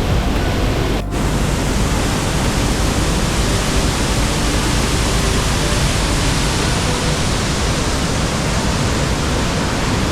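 Waterfall pouring: a steady, loud rush of falling water that briefly dips about a second in.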